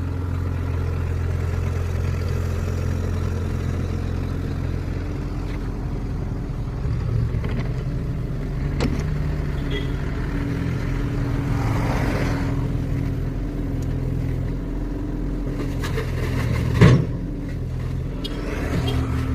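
Diesel engine running steadily, its note shifting about seven seconds in, with a single sharp bang about seventeen seconds in.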